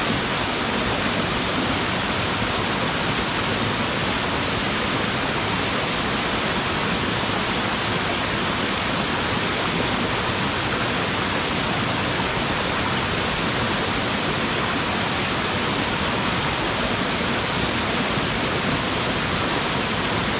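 Waterfall: a steady, unbroken rush of falling water with a bright, hissing character.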